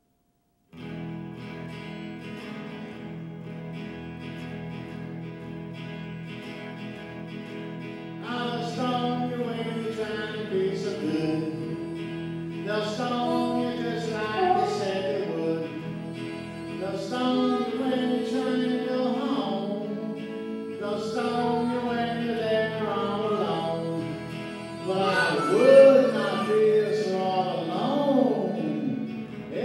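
Solo electric guitar played through a small amplifier, opening with steady held notes, joined about eight seconds in by a man singing into a microphone.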